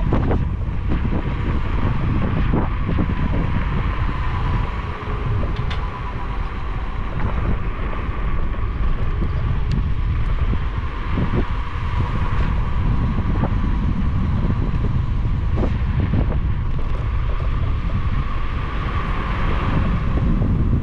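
Wind buffeting the microphone while riding a scooter, over a steady rolling rumble, with a thin whine that wavers slightly in pitch and scattered short knocks.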